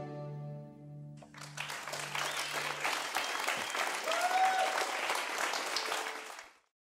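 The last held notes of a baroque violin, lute and bass clarinet trio die away, and about a second in an audience breaks into applause. The clapping stays even for several seconds and then cuts off suddenly near the end.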